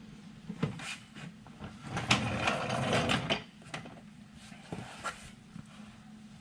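Handling and fitting work on a plastic wheel well guard: scattered clicks and knocks, with a louder stretch of rattling, scraping noise about two seconds in that lasts a second and a half.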